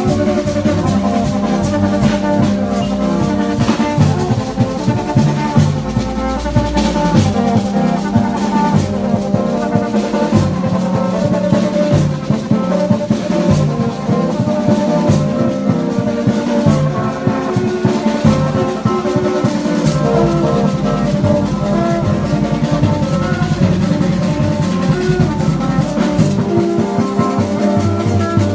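Haitian rara band: long plastic vaksin horns sounding short held notes at several pitches over a steady drum beat.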